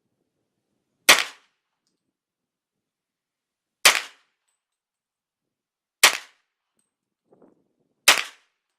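Four single shots from an AR-15 rifle chambered in .40 S&W, firing 165-grain Winchester FMJ pistol rounds. The shots are spaced about two to three seconds apart, each a sharp crack with a short ring-out.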